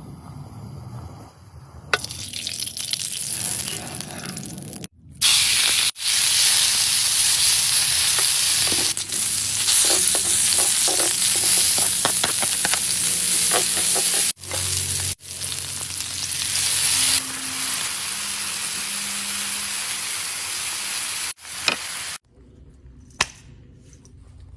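Food sizzling and frying in a hot pan, the hiss cutting in and out abruptly several times, with a few light clicks in the middle.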